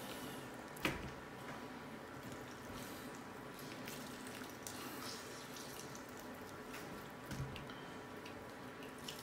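Orange halves squeezed by hand over a bowl of chopped fruit, juice dripping in with faint squishing, and a single soft knock about a second in.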